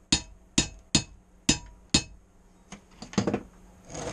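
Hammer striking steel in sharp, evenly spaced ringing blows, about two a second, followed by a few weaker knocks and metal clatter in the last couple of seconds.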